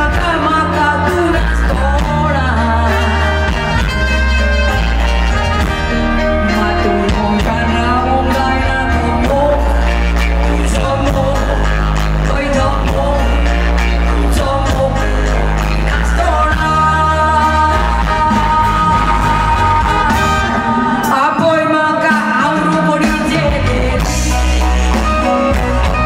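Live band music with a woman singing lead over acoustic and electric guitars, drums and a heavy, steady bass line.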